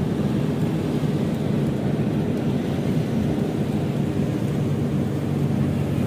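Steady low rumble of a car driving on a wet road, heard from inside the cabin: road and engine noise with no sudden changes.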